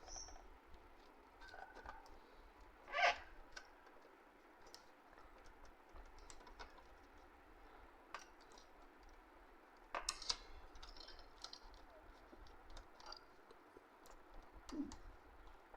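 Scattered light clicks and taps of hands handling the printer's internal parts and cable connectors during reassembly, with a louder knock about three seconds in and another about ten seconds in.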